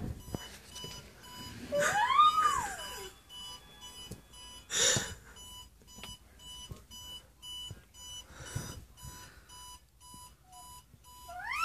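An electronic alarm clock beeping in a steady repeating pattern, about two short beeps a second. About two seconds in, a dog howls once, the pitch rising then falling; a brief sharp noise comes near the middle, and a second howl begins at the very end. The owner takes the dog's howling as a reaction to the beeping hurting his ears.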